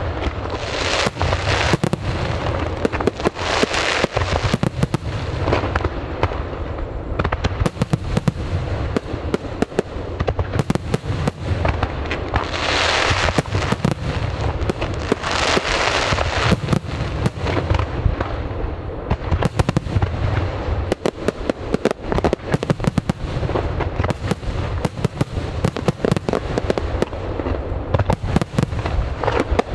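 Aerial fireworks bursting in quick succession: many sharp bangs over a continuous low rumble, with several swells of crackling hiss, the biggest around the middle.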